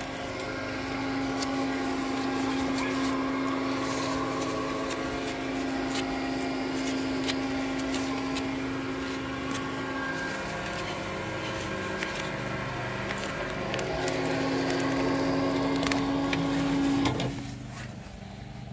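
Electric roller shutter's motor running with a steady hum as the slat curtain rolls through its tracks, with light clicks from the slats. The motor cuts off near the end.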